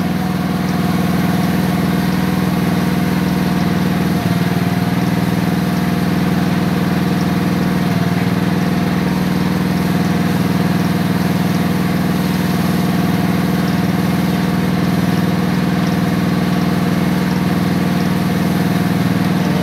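Gas engine driving a Comet P40 pump on a soft wash rig, running steadily at a constant pitch, with a slight shift in tone about four seconds in.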